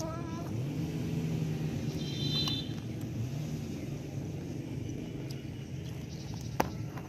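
A motor vehicle's engine running, its low hum rising in pitch about half a second in and sinking again later. A short high squeak sounds at the start and a sharp click near the end.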